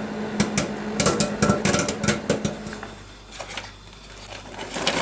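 Caramel microwave popcorn popping in a microwave oven: rapid, irregular pops over the oven's steady hum. After about two and a half seconds the hum drops and the pops thin out to a few scattered ones, as the popcorn nears done.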